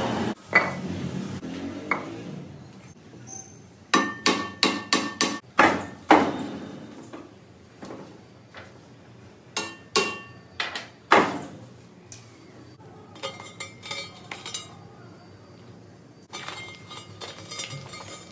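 Hammer striking metal in irregular blows, each leaving a short metallic ring, with a quick run of strikes about four seconds in. Lighter metal-on-metal clinking follows near the end.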